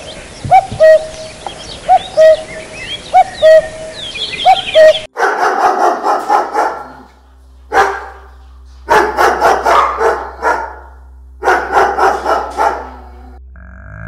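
An owl calling, a string of short hoot-like notes about once a second, over small birds chirping. It cuts off abruptly about five seconds in, and a husky barks in four bursts of rapid barks.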